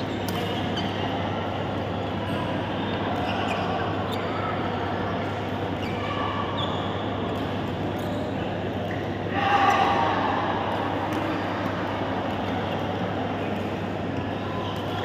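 Badminton hall ambience: a steady hum under a haze of distant voices, with a few sharp racket strikes on a shuttlecock now and then and a louder burst about nine and a half seconds in.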